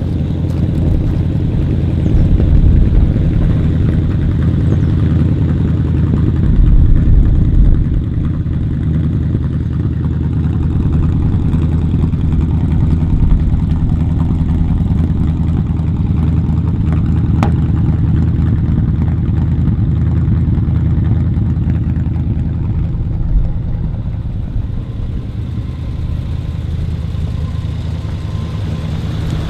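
A 1949 Ford F1 pickup's flathead V8 with Offenhauser heads idling steadily through its dual exhaust, with a low, even rumble and small swells in level. A single sharp click about two-thirds of the way through.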